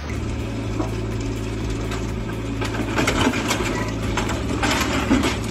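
Mini excavator's diesel engine running steadily as the machine crawls off a flatbed truck, with clanking and scraping of steel tracks on the truck bed, loudest about three seconds in and again near the end.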